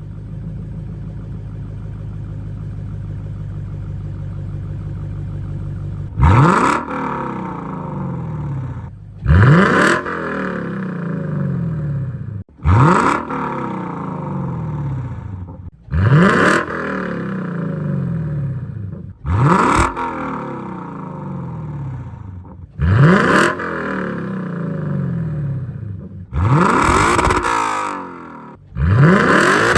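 Lexus LC 500's 5.0-litre V8 exhaust, fitted with an aftermarket mid pipe. It idles steadily, then from about six seconds in it is blipped eight times, roughly every three and a half seconds, each rev rising sharply and dropping back to idle.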